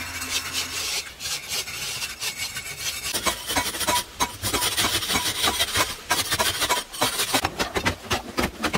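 Hand tools scraping and chipping at a hard-packed earth wall: a run of irregular rasping scrapes and knocks.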